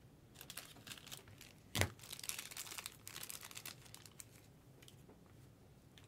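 Faint rustling and crinkling of trading-card packaging being handled and opened, with a sharper click a little under two seconds in and a run of small clicks after it.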